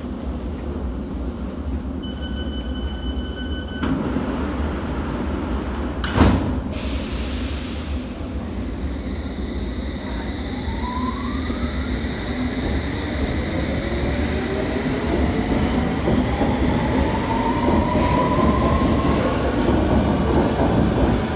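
London Underground S Stock train at the platform. About two seconds in there is a short run of door-warning beeps, and a few seconds later the sliding doors bang shut. The train then pulls away, its traction motors giving a whine that rises in pitch as it speeds up and grows louder near the end.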